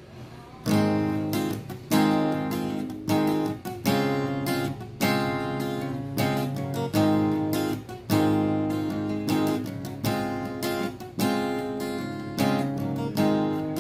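Steel-string acoustic guitar strummed in chords, with a strong stroke about once a second and lighter strums between, the chords ringing on between strokes.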